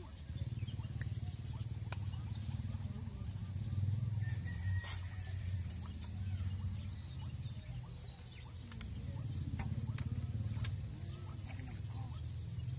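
Outdoor pond-side ambience: a low steady rumble with a thin high steady tone over it, a few faint clicks, and a brief faint call a little under five seconds in.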